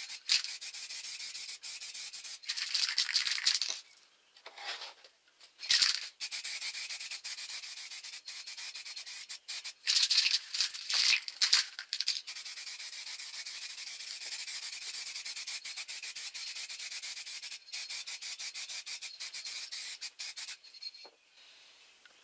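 Aerosol can of clear varnish spraying with a steady hiss, in several passes broken by short gaps and louder spells, stopping shortly before the end.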